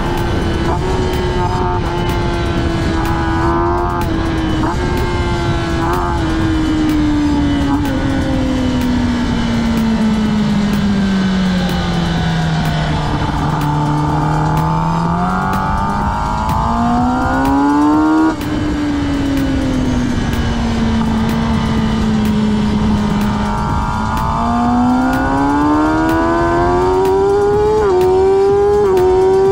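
Racing motorcycle engine heard onboard through a lap. The revs sink slowly to their lowest about halfway through, climb again, dip once more, then rise, with a few short jerks in pitch near the start and the end.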